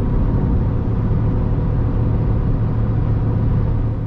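Steady drone inside a moving car's cabin: engine and road noise with the air conditioning blowing on high, under a constant low hum.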